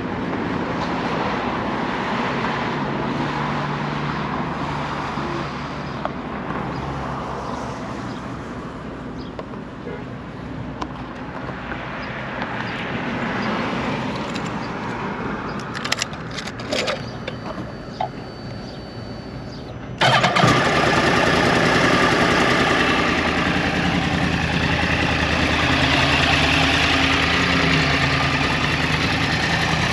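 Background noise with a few clicks, then about two-thirds of the way through, the 2009 Yamaha R1's crossplane inline-four suddenly running at idle through its under-tail exhausts. Its pitch rises and falls once in a short blip near the end.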